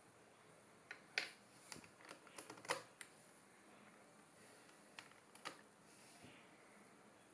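Plastic clicks and clacks of a black DIY Type-A 3x3x3 puzzle cube being taken apart, its pieces pulled out by hand and set down on a wooden table. A quick cluster of clicks comes about one to three seconds in, then two more a little after five seconds.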